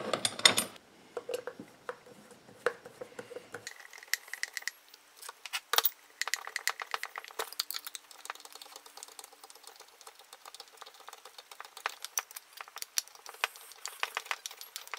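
Irregular small metallic clicks and rattles of a hex key working the case screws of a Farmertec MS660-clone chainsaw crankcase while the aluminium case halves are handled, with a few sharper clicks now and then.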